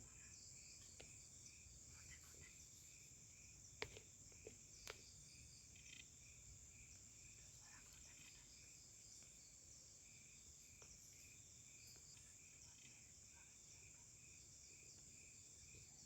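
Forest insects: a faint steady high-pitched buzz with a rhythmic cricket-like chirping, about three chirps a second. A few sharp clicks come around four to five seconds in.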